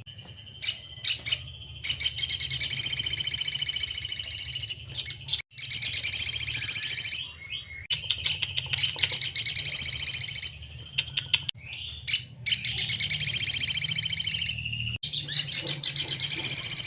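A sogon bird singing: high, rapid trilled phrases of a couple of seconds each, about five of them, broken by short pauses and single sharp chips. A faint steady low hum runs beneath.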